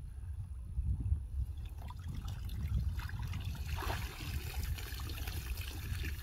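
Water trickling and pouring out of a large plastic drum, about 250 litres, as it is tipped and rocked in shallow water to empty it.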